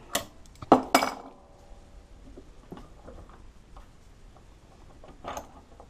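Metal clinks and knocks of an adjustable wrench and a hose fitting against a bench vise: three sharp clinks in the first second, the last ringing briefly, then a few fainter knocks as the fitting is handled in the vise.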